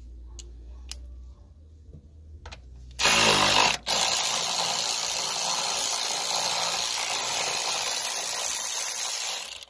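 A power tool with a socket on an extension spins a 10 mm nut loose. A few faint clicks come first. About three seconds in the motor starts, pauses briefly, then runs steadily and stops abruptly just before the end.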